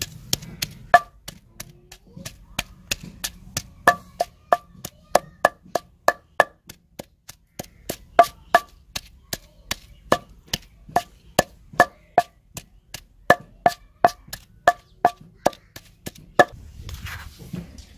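Wooden pestle pounding garlic and ginger into a spice paste in a stone mortar: steady strikes about three a second, some with a short ringing tone. The pounding stops about a second and a half before the end.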